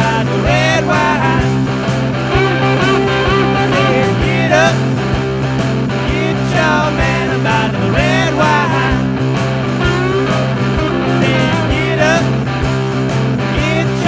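Live blues-rock band playing: electric guitar, bass guitar and drum kit together, with regular drum hits and guitar notes bending in pitch.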